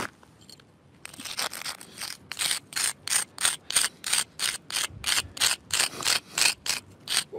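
A piece of red brick scraped rapidly back and forth across a rough stone slab, drawing marking lines. The scraping starts about a second in and goes on in even strokes, about three a second.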